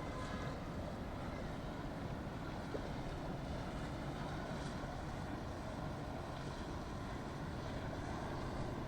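Boat motors running steadily in an inlet, mixed with wind on the microphone and the wash of waves.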